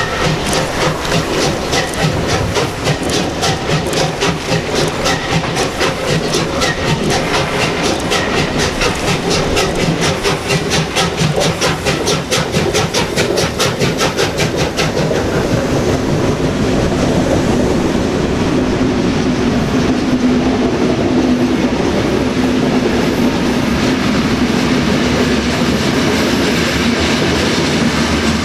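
Steam locomotive hauling a passenger train away under power, its exhaust chuffing in quick, even beats. About halfway through the beats give way to the steady rolling and clatter of the coaches passing over the rails.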